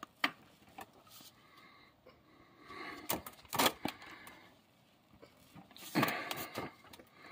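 A 13 mm wrench straining on a stuck oil pan drain plug: a few small metal clicks and two short scuffs about 3 and 6 seconds in as the gloved hand pulls. The plug is seized and does not break loose.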